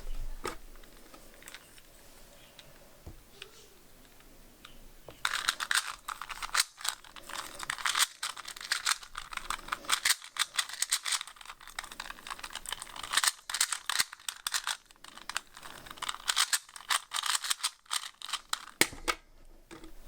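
Plastic 2x2 Rubik's cube being turned fast in a speed solve: a few isolated clicks, then from about five seconds in a dense run of rapid clicking and rattling that stops shortly before the end.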